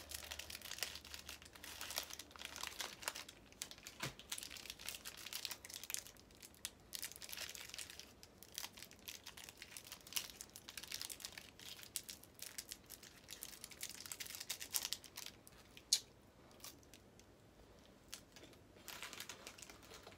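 Plastic snack wrapper crinkling and crackling in irregular bursts as it is handled and torn open, quieter for a few seconds near the end.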